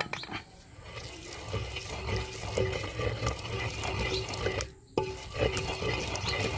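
Wet, squishing grinding of a paste of mint, coriander, green chillies, ginger and spices being worked by hand with lemon juice added, a crackly run of small clicks and squelches with a brief pause near the end.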